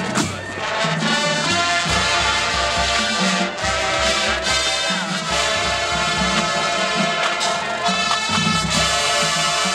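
College marching band playing live: massed brass holding sustained chords over a steady beat from the drums.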